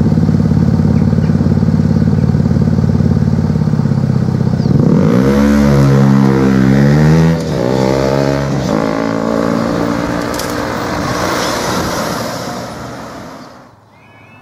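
Road vehicle engines running at a level crossing, idling steadily at first. From about five seconds in they rev, their pitch rising and falling as traffic pulls away over the crossing, then the sound fades and cuts off near the end.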